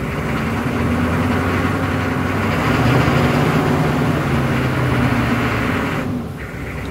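A Chevrolet van's 6.5-litre turbo-diesel V8 is revved up from idle and held at raised speed for a few seconds. It drops back toward idle near the end.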